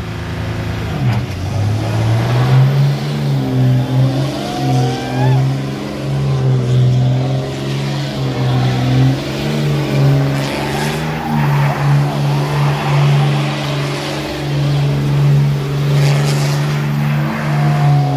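Pickup truck's engine revving hard and held at high revs, pitch wavering up and down, during a burnout with the rear tires spinning against the pavement.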